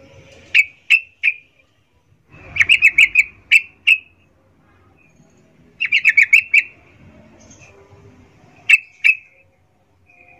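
Yellow-vented bulbul (trucukan) giving sharp chipping calls in bursts: three single notes, then two quick runs of about six notes each, then two more near the end. It is the female's mating call used to draw a male.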